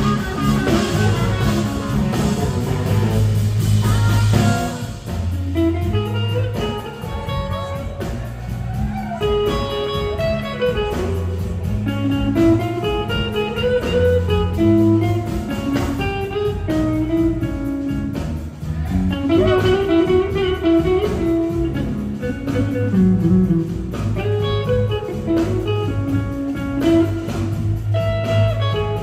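Live blues-rock band playing an instrumental section: an electric guitar plays a lead of single-note lines with bends over bass and drums.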